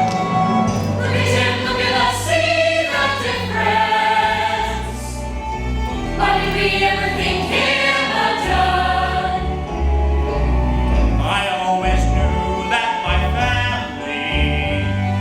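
A chorus of voices singing a musical-theatre number together over instrumental accompaniment with a steady bass line.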